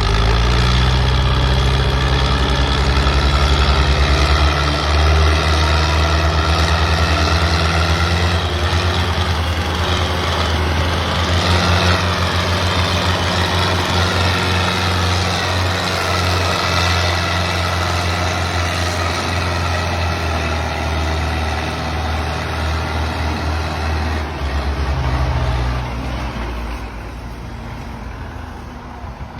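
Tractor engine running steadily. Its pitch steps up about four seconds in, drops back near the end, and then fades.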